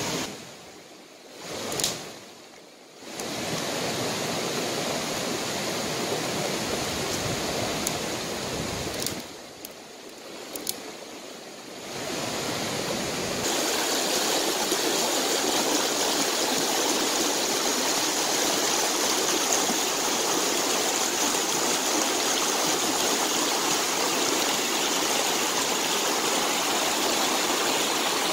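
Shallow rocky stream rushing and splashing over stones, a steady rush that grows fuller after about thirteen seconds. In the first half, where the water is quieter, there are a few sharp snaps of dry twigs being broken by hand.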